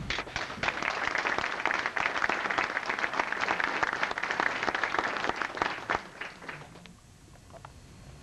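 Audience applause: many people clapping together, thinning out and dying away about six to seven seconds in.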